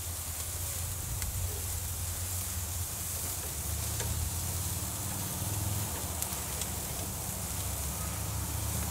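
Sliced tomatoes and onion rings sizzling steadily on a hot gas grill grate as they are turned over, with a few faint clicks.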